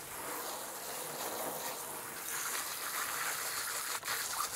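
Hose spray nozzle blasting a jet of water onto a gutted fish and a stainless steel bench, a steady hissing splash, briefly broken about four seconds in.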